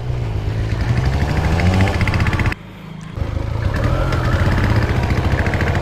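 Motorcycle engine running on the move, its pitch climbing over the first two seconds as it accelerates. The sound drops away for about half a second partway through, then the engine carries on steadily.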